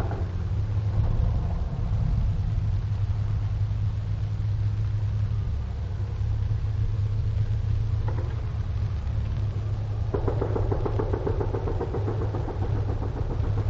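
Rapid machine-gun fire: a single shot about 8 seconds in, then from about 10 seconds a long fast burst of closely spaced shots. A steady low hum from the 1944 field recording runs underneath and is the loudest part.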